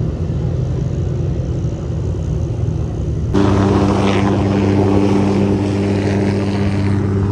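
Small light helicopter hovering low, giving a steady rotor and engine hum that comes in suddenly about three seconds in, replacing a low rumble.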